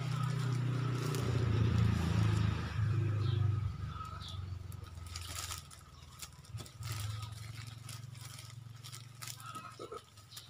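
Thin plastic bread bag crinkling as bread is handled inside it, with a few sharp clicks, over a low steady hum that is loudest in the first few seconds.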